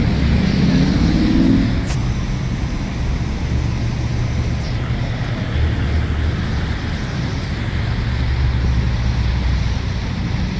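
City street traffic: a steady low rumble of passing cars and other motor vehicles, with a single sharp click about two seconds in.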